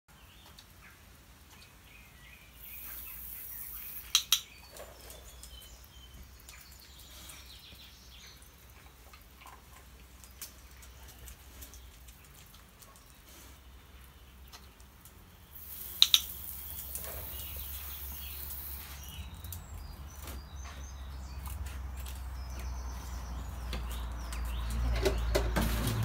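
Garden hose spray gun turned on twice, each time giving a short high hiss of spraying water, with a sharp double click of a dog-training clicker about four seconds in and again midway. A low rumble builds near the end.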